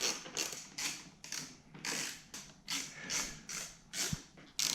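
Hand ratchet wrench clicking in quick back-and-forth strokes, about three a second, running a bolt in.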